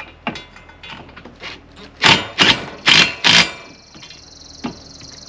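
Cordless impact driver running nuts down onto the bolts of a camper jack extension: a few light clicks, then about two seconds in four short hammering bursts in quick succession, and near the end the tool's motor whining steadily.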